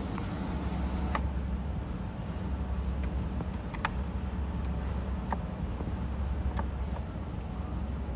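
Light, irregular clicks of a hand screwdriver turning screws into the stand bracket on the back of a TV, over a steady low background hum.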